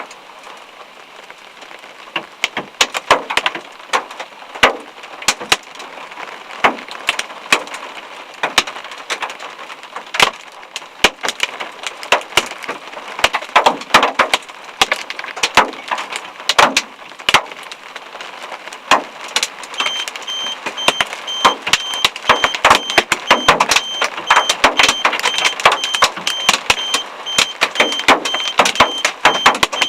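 Hailstones striking hard surfaces as many irregular sharp knocks, sparse at first and growing denser and louder. About twenty seconds in, a rapid high electronic beeping starts and keeps going.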